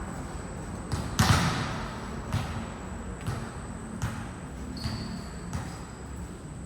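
Volleyball being hit and bouncing on a court: a series of sharp thuds, the loudest a little over a second in, then roughly one a second after that.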